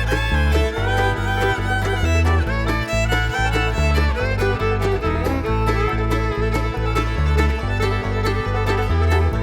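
Background music: an upbeat country-style tune with fiddle and plucked strings over a steady bass beat.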